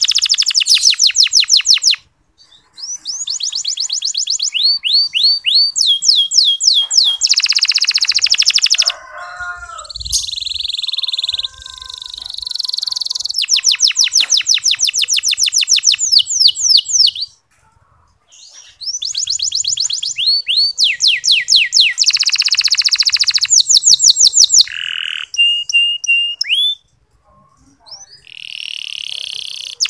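Domestic canary singing fine, fast rolling trills in the 'ngeriwik' style, in long phrases broken by brief pauses about two seconds in, around the middle and shortly before the end.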